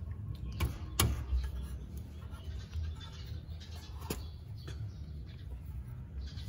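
Sharp metal clicks and knocks as a brake caliper is handled and fitted back over the front disc and brake pads, the loudest about a second in and another about four seconds in, over a low steady hum.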